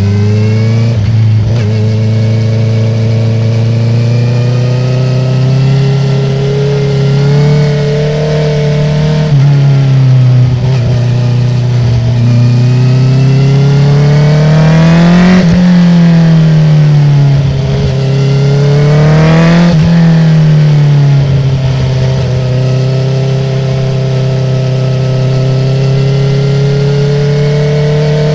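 2019 Honda CB650R's inline-four engine through a full Akrapovic titanium exhaust with the dB killer removed, running under way with the revs rising and falling. The pitch climbs slowly, drops about nine seconds in, peaks twice with a fall after each, about halfway and again near two-thirds through, then climbs steadily again.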